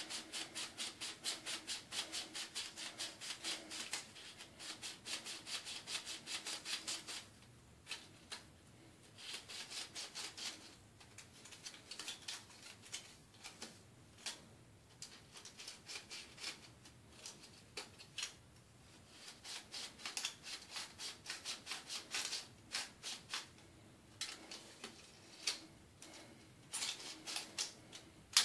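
Plastic spiral film-developing reel being ratcheted by hand, its two halves twisted back and forth to walk the film into the spiral: quick runs of small plastic clicks with a light rubbing, broken by short pauses.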